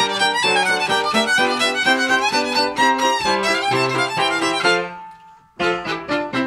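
Violin and piano playing Transylvanian Hungarian folk dance music, Kalotaszeg legényes and szapora: the fiddle plays quick melodic lines over repeated piano chords. About five seconds in the playing stops for about half a second, leaving one note fading, then starts again.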